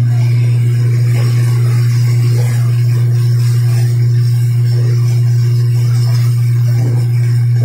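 Downed power line arcing and sparking on a wet road: a loud, steady electrical buzz, over the hiss of falling rain.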